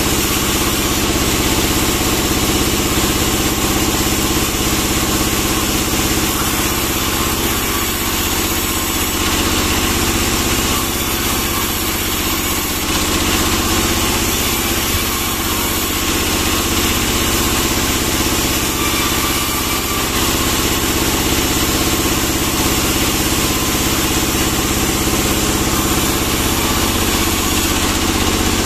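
Log sawmill running steadily as pine logs are sawn, a constant machine drone with a steady hum that does not let up.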